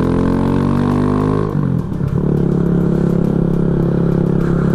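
Kawasaki Z125 Pro's 125 cc single-cylinder engine pulling under acceleration with its pitch slowly rising, then a brief drop in revs as it shifts up about a second and a half in, after which it runs at a steady speed.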